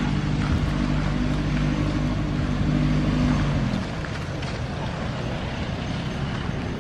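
A motor engine running steadily at a constant low hum, which cuts off about halfway through, leaving a steady outdoor noise.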